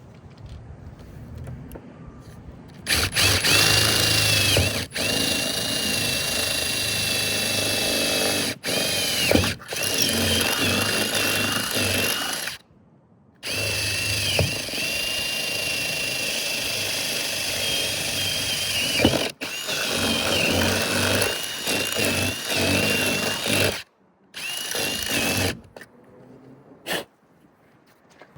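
Power drill running in several long bursts with short stops between them, its motor a steady high whine that wavers a little as it works.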